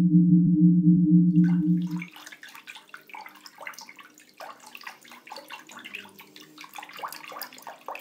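A loud, low pulsing hum that cuts off about two seconds in, followed by faint water lapping and trickling in a swimming pool, with many small clicks and splashes.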